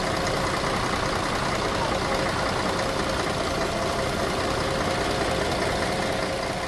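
City street ambience: a steady wash of traffic noise with vehicle engines running and idling, and a faint steady engine hum.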